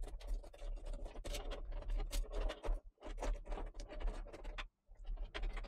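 Braided sleeved PC power cables being handled and stuffed into a tight space in a computer case: irregular scratching and rubbing of the sleeving, with two brief pauses.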